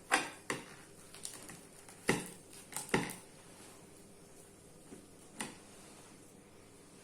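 A few short light knocks and taps, several in the first three seconds and one more a little after five seconds, from hands handling dough and utensils on a kitchen worktop.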